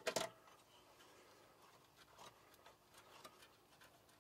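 Faint scattered small clicks and taps of hands and a tool working at the heater connection of a spa control board, with a couple of sharper clicks at the very start.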